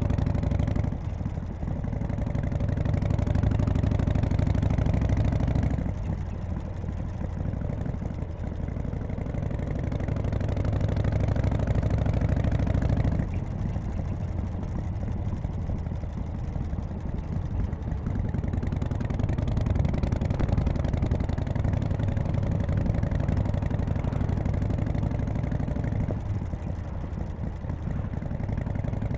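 1991 Harley-Davidson FXSTC Softail's Evolution V-twin running on the road, alternating several times between pulling on the throttle and easing off. The bike is being ridden to bring out a squeal that comes on when the throttle is closed and stops when the clutch is pulled in.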